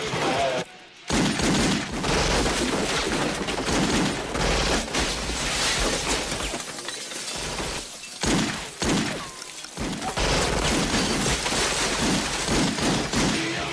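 Rapid handgun gunfire with glass shattering, the shots coming thick and fast, broken by two short lulls.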